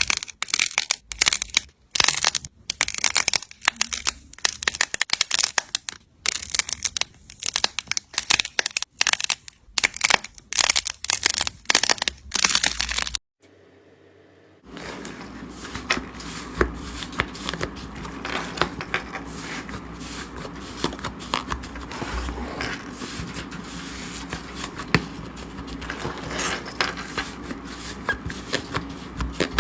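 Slime being pressed and stretched by hand close to the microphone: a fast run of sharp pops for about thirteen seconds, a short break, then a softer, denser stream of tiny clicks.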